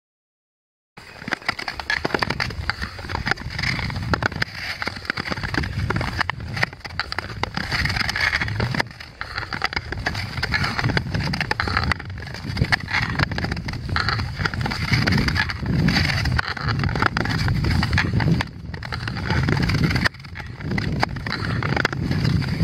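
Nordic touring skate blades gliding and scraping over clear lake ice, a continuous uneven hiss with a low rumble beneath. It starts about a second in, after silence.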